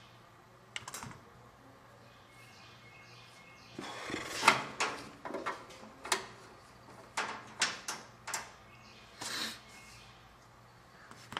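A scattered run of sharp clicks, knocks and rustles, most of them packed into the middle and the loudest about four and a half seconds in: hands working wiring into a car's front grille panel.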